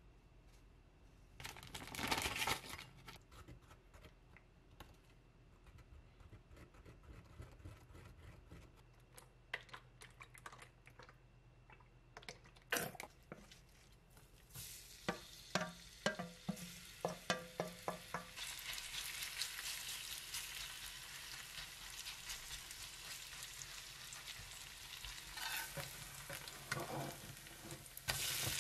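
A spoon stirring and scraping in a small glass bowl as a seasoning sauce is mixed. About halfway through, chive-and-onion pancake batter is poured from a steel bowl into a hot frying pan, with clinks of bowl and spoon, and it starts sizzling steadily as it fries.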